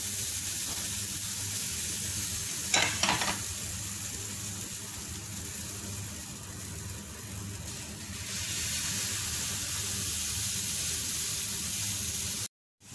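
Pancake batter frying in a dry, unoiled nonstick pan, a steady soft sizzle that grows a little louder about eight seconds in. A brief sharp clatter about three seconds in.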